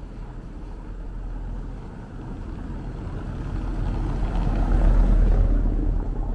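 A vehicle passing on the street, swelling to its loudest about five seconds in and then fading, over a steady low rumble of wind on the microphone.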